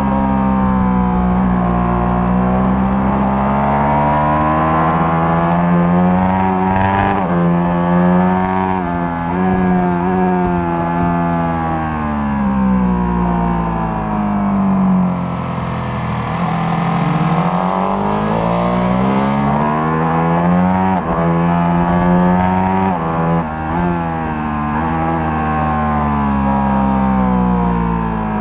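Ducati Panigale 1199's Superquadro V-twin through a Termignoni exhaust at full track pace, heard from on board. The engine note climbs hard through the gears with quick breaks at the shifts, then drops away as the bike slows for corners.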